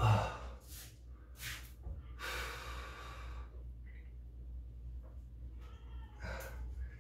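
A man breathing hard from exertion between sets of dumbbell shoulder raises: a few short exhales, then one long exhale about two seconds in.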